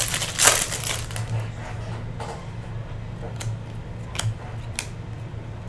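Foil wrapper of a Topps Chrome baseball card pack crinkling as it is torn open about half a second in. Cards are then slid and flicked through by hand, with a few light clicks. A low steady hum runs underneath.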